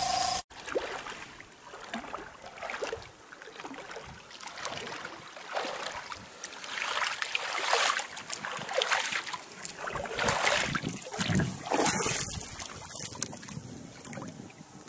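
A short music sting cuts off about half a second in. Then water sloshing and splashing unevenly around a person wading waist-deep, with her hands moving at the surface.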